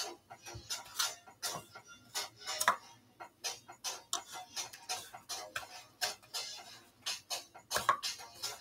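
A metal fork clicking and tapping against a bowl of egg batter, with hands handling croquettes in a bowl of breadcrumbs. The light clicks come irregularly, about two or three a second.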